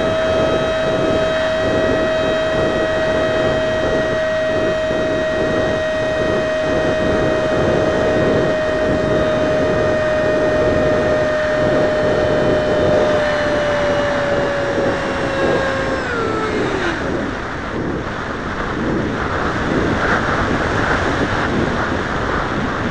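The 50mm electric ducted fan of a small RC jet runs with a steady high whine over a rush of wind. About sixteen seconds in, the whine falls in pitch and dies away as the throttle is cut for landing, leaving mostly wind rush.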